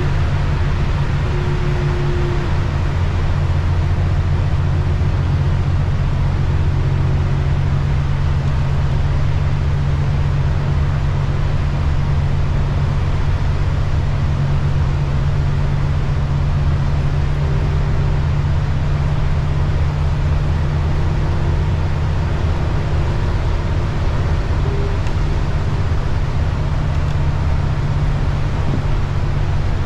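Steady low drone of a city transit bus's engine and drivetrain heard from inside the cabin while cruising at highway speed, over an even hiss of tyres on the wet road.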